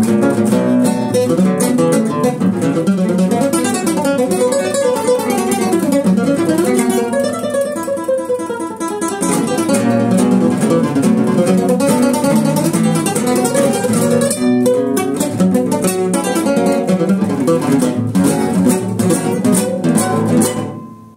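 Two classical guitars playing a plucked duet, with a softer passage about seven to nine seconds in. The music fades out at the very end.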